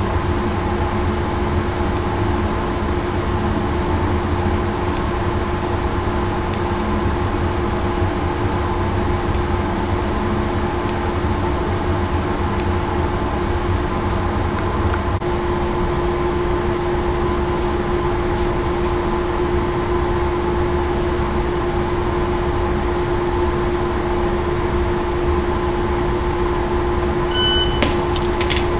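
Steady ventilation hum of an indoor shooting range: a constant drone with a low rumble and one held tone. Near the end come a few faint clicks as a pistol is laid on the concrete floor.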